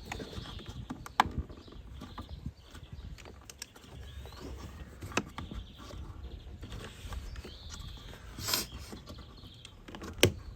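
Scattered clicks and knocks of hand work on a car door panel: tools and plastic trim being handled while the door card is freed. There is a louder scraping burst about eight seconds in.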